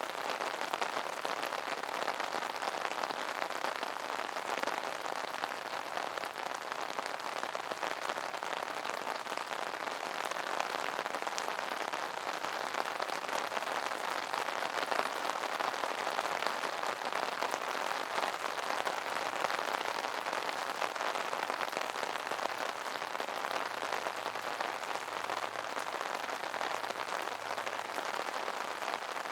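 Steady rain falling on an umbrella: a dense, even mass of small drop ticks that holds at a constant level.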